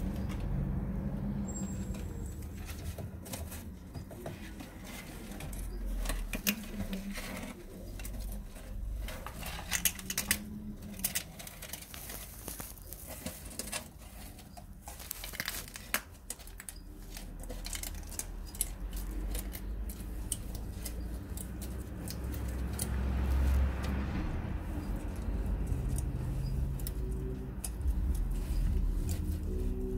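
Savannah monitor lizards crunching snails, shells and all, in their jaws: irregular sharp cracks and crackles, thickest between about six and seventeen seconds in.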